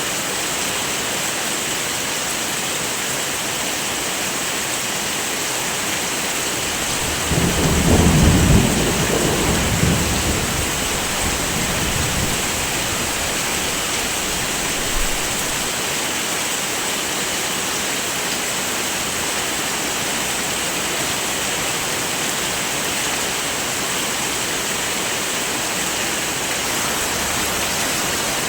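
Steady heavy rain, with a rumble of thunder rising about seven seconds in, peaking around eight seconds and dying away over the next few seconds.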